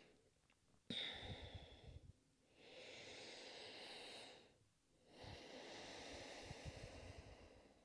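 A woman breathing slowly and faintly: three long breaths of about two seconds each, with short pauses between.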